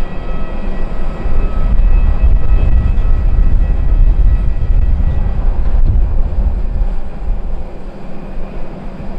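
Beechcraft King Air twin turboprop approaching and landing: steady engine and propeller hum with several held tones that fade about halfway through. Heavy gusting wind rumbles on the microphone underneath and eases near the end.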